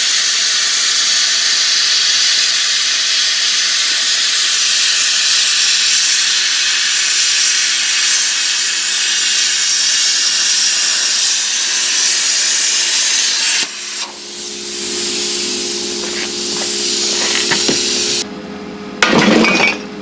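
Hypertherm Powermax 1000 plasma cutter cutting through a cast-iron lathe bed: a loud, steady hiss that cuts off suddenly about fourteen seconds in, leaving a lower steady hum with a few clicks. A loud clank comes about a second before the end.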